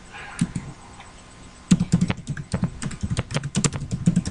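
Computer keyboard typing: a couple of single keystrokes, then a quick, steady run of keystrokes from a little under two seconds in.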